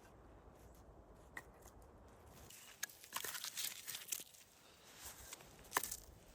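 Crunching and rustling with sharp clicks, starting about three seconds in after a faint stretch, the loudest click near the end.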